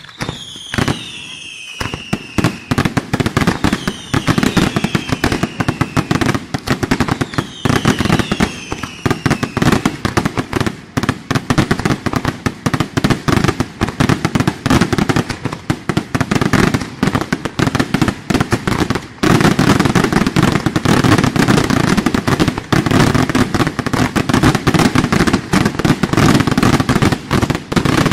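Aerial fireworks display: a dense, rapid string of shell bursts and crackling, with several whistles falling in pitch during the first third. The barrage grows louder and denser about two-thirds of the way through.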